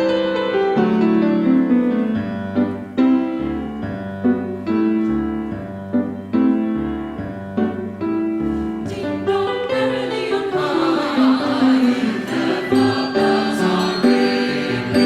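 Choral music: a choir singing with instrumental accompaniment, struck notes sounding throughout.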